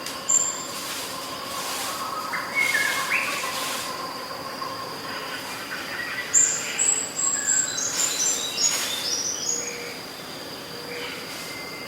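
Outdoor nature ambience: birds chirping over a steady high insect-like drone, with a cascade of short high notes stepping down in pitch about six seconds in.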